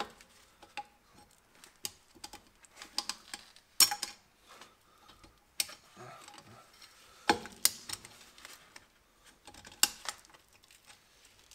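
Pliers clicking and clinking against the steel return spring and handbrake cable end on a drum-brake backing plate as the cable is worked loose. The clicks are scattered and sharp, with the loudest about four, five and a half, seven and ten seconds in.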